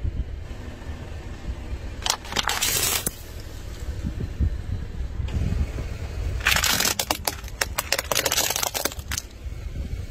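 Car tyre rolling over two plastic toy cars, their bodies cracking and snapping in a dense run of crackles for about two and a half seconds, over the low rumble of the car. A few sharp cracks come earlier, about two to three seconds in.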